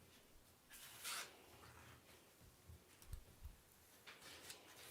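Near silence with faint paper-like rustling about a second in and a couple of soft low bumps later: a picture book being handled and opened before reading.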